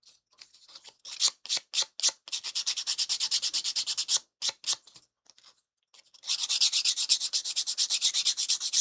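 Small wooden model part being sanded by hand: back-and-forth rubbing strokes, a few slow ones at first, then two runs of fast, even strokes about ten a second, with a pause of about two seconds between them.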